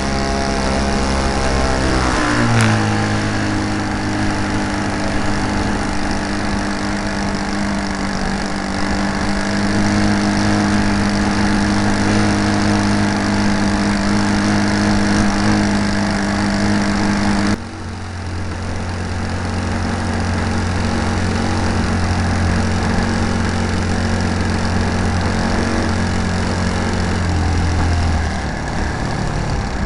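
Great Planes Slow Poke RC model airplane's engine running steadily, heard close up from on board the aircraft. Its pitch shifts about two and a half seconds in. There is a sudden brief drop in level a little past halfway, and the lowest tones fall away near the end.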